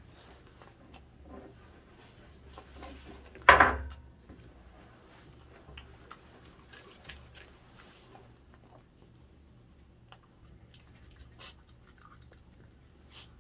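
A dachshund chewing and biting on raw chicken, with small wet clicks and crunches throughout. One loud, sharp knock comes about a third of the way in.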